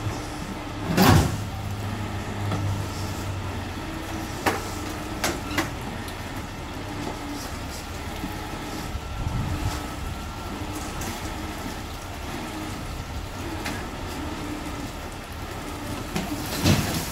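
Tow truck engine running steadily while it winches a car out of a swimming pool, with several sharp knocks and clanks; the loudest comes about a second in and another near the end.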